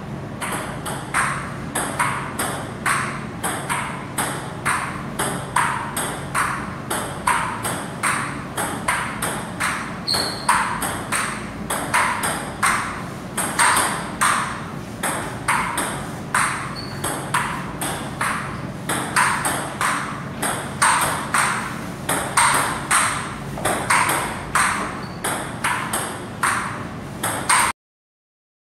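Table tennis rally: a celluloid ball clicking sharply off paddles and the table about twice a second, with a steady low hum underneath. It cuts off abruptly near the end.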